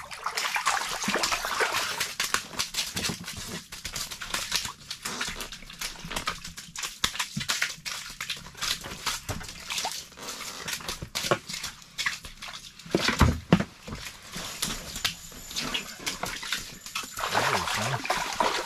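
Irregular crackling and rustling with many scattered clicks, from handling an ice-fishing rod and reel while fighting a fish. There is a heavy thump about two-thirds of the way through, and water splashes near the end as the fish is lifted up through the ice hole.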